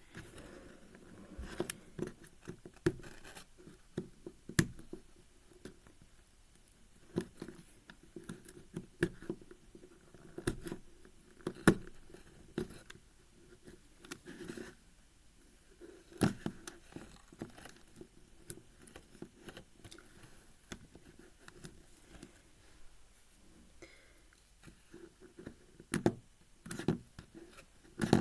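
Sticky tape being peeled and torn off the plastic pieces of a 5x5 puzzle cube, with irregular clicks and scrapes as the plastic pieces are handled.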